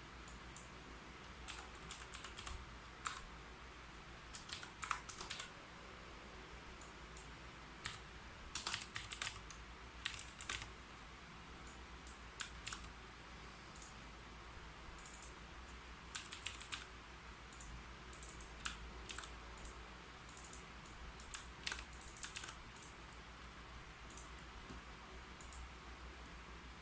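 Typing on a keyboard: short, irregular runs of keystroke clicks separated by brief pauses.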